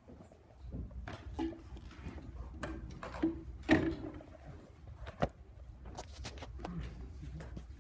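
Scattered room sounds from people at desks: small knocks, clicks and rustling, with a few brief faint voice sounds. The loudest is a short sharp knock a little under four seconds in.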